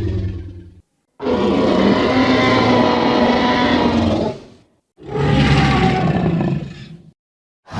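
Dinosaur roar sound effect: the tail of one roar fades out within the first second, then comes a long, deep roar of about three and a half seconds and a shorter one of about two seconds, each separated by a brief silence.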